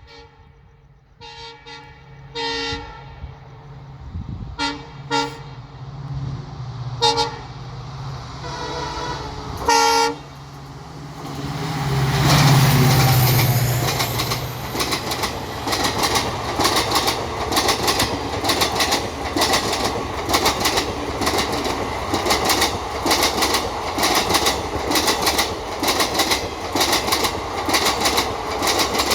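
WDP4D diesel locomotive sounding its dual-tone horn in a series of short honks over the first ten seconds, two of them longer, while its engine grows louder as it approaches. The engine passes loudest a little after twelve seconds in, then the coaches follow with a steady, rhythmic clickety-clack of wheels over rail joints.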